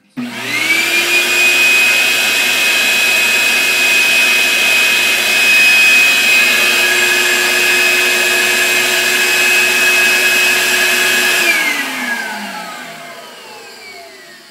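Vacuum cleaner motor switched on and running with a steady high whine, drawing air through a homemade vacuum-forming box to pull a heated plastic sheet down over the form. After about eleven seconds it is switched off and winds down, its whine falling in pitch.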